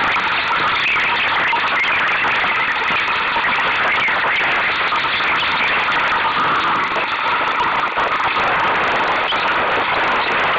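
Steady rushing noise of wind and water around a sailing dinghy under way in choppy water.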